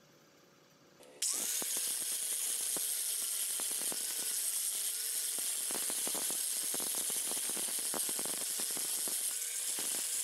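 Angle grinder switched on about a second in and run against the flat of a steel knife blade: a steady motor whine under a loud rasping grind.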